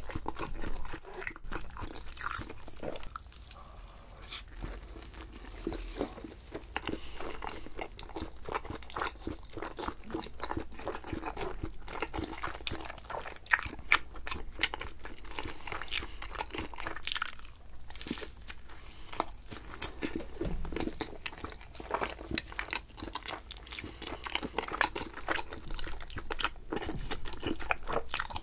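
Close-miked eating: a person chewing and biting food, with irregular crunching and wet mouth sounds.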